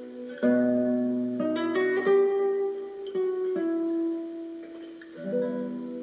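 Background instrumental music on a plucked string instrument: slow, gentle chords and single notes, each struck and left to ring out.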